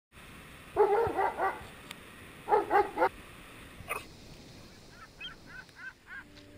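Dog barking: a quick run of about four barks, then three more about a second and a half later. A few faint, short, high chirps follow near the end.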